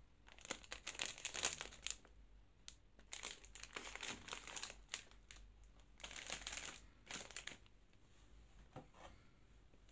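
Shiny plastic wrappers of Magnum Mini ice cream bars crinkling as they are picked up and handled, in three spells of a second or two each, settling to quieter rustling near the end.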